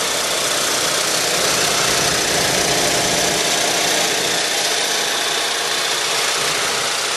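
2012 Chevy Equinox's four-cylinder engine idling steadily, heard from underneath the car, under a steady hiss.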